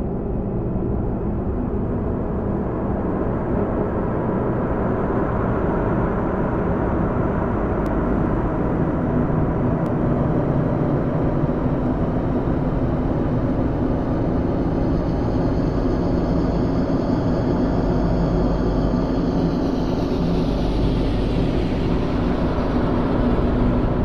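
Waterfall pouring and splashing onto rock: a steady, dense rush of water noise, with more hiss in the last few seconds.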